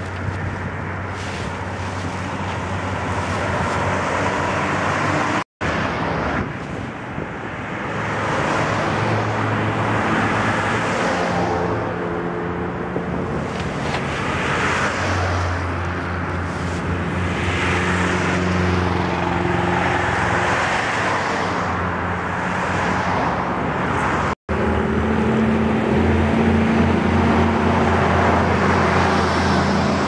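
Road traffic: cars passing one after another, their noise swelling and fading every few seconds over a steady low engine hum.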